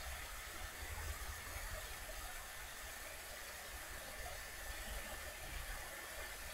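Faint steady hiss with a low rumble underneath: background noise with no distinct event.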